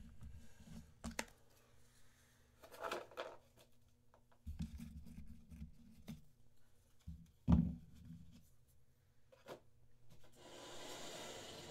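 Faint handling noises at a desk: scattered light clicks and rubbing, a louder knock about 7.5 seconds in, and a soft rustle near the end.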